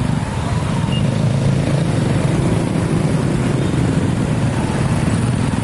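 Steady, loud road-vehicle noise with engines running close by.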